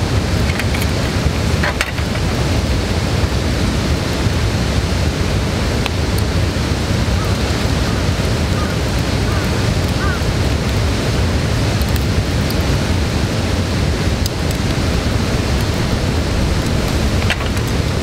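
Wood fire burning in a metal fire pit: a steady low rushing with a few sharp crackles scattered through it.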